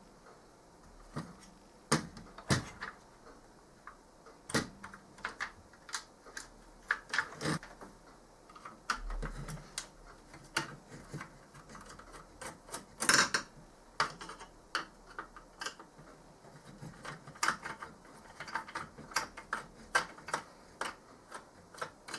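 Irregular clicks and clacks of a screwdriver working the screws of a laser printer fuser assembly and of its plastic casing being handled, with a louder clatter about halfway through.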